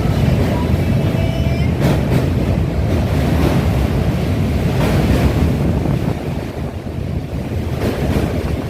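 Wind buffeting the microphone in a heavy, steady low rumble, with a few short louder bumps about two, five and eight seconds in.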